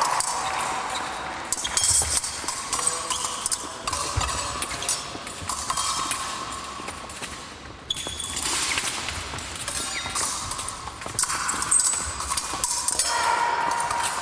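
Épée fencing bout in progress: feet stamping and scuffing on the piste and blades clicking against each other in irregular bursts, over the hum of a large hall.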